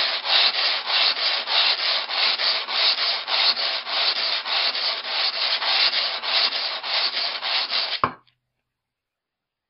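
Axe head drawn back and forth over 120-grit wet-and-dry sandpaper backed by a foam sleeping mat, an even rasping rhythm of about three to four strokes a second: hand-sharpening a convex axe edge to grind out chips and nicks. The strokes stop abruptly with a short knock about eight seconds in.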